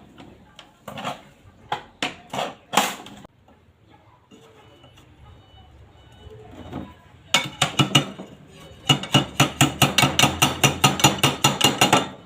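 Hammer strikes: a few separate knocks, then a fast, even run of blows at about four a second.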